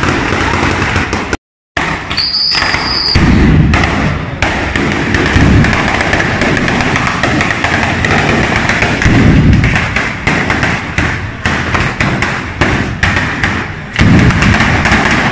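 A ground-laid firecracker 'batteria' going off in a rapid, continuous string of sharp bangs, cracking one after another with only a brief break about a second and a half in.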